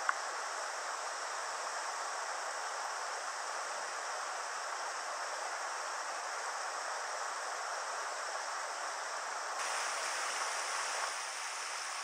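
Mountain river current rushing steadily over riffles and rocks. About two-thirds of the way in it turns brighter and a little louder, as a more broken stretch of white water comes in.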